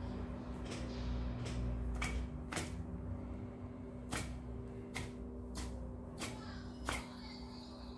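Irregular sharp clicks and knocks of kitchen items being handled, about nine in eight seconds, over a steady low hum.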